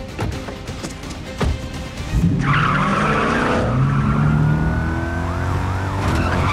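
A few knocks, including a car door shutting, then about two seconds in a car engine revs hard and rises in pitch as the car takes off, tires squealing and chirping on the pavement.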